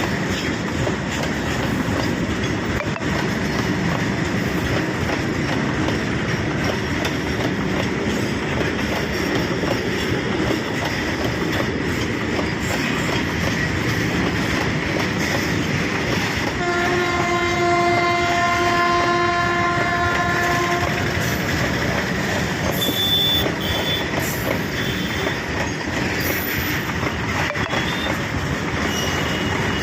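Freight train rolling past, its wheels rumbling steadily on the track. About seventeen seconds in the locomotive sounds one long horn blast of about four seconds, followed by a few short, high wheel squeals.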